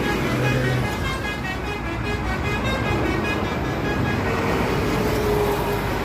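Basuri V3 telolet horn on a tour bus playing a multi-note tune, its notes changing quickly with one longer held note in the second half, over road traffic noise.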